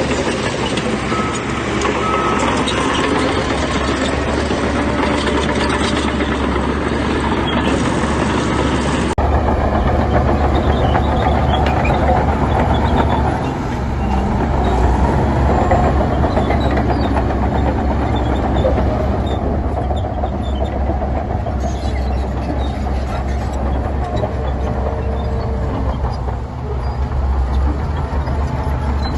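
Heavy diesel earthmoving machinery running steadily and loudly. About nine seconds in, an edit switches to another shot of the same kind of engine noise.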